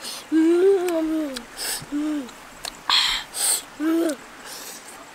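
A boy humming "mmm" through closed lips while eating grilled shrimp. There is one longer hum that rises and falls about half a second in, then shorter ones near two and four seconds, with short hissy chewing and smacking noises between them.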